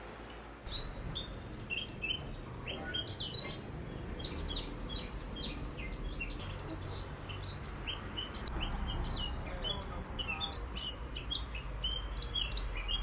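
Small birds chirping and twittering outdoors, a busy run of short high calls, several a second, over a steady low rumble.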